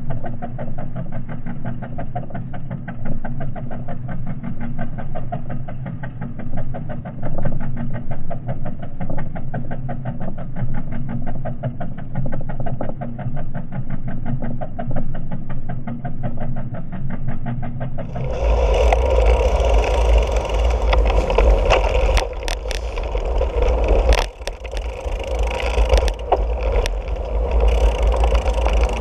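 A muffled, rapidly pulsing engine-like drone for about the first two-thirds. It changes suddenly to wind buffeting a bicycle-mounted action camera's microphone, with sharp clicks and rattles from the bike rolling over paving.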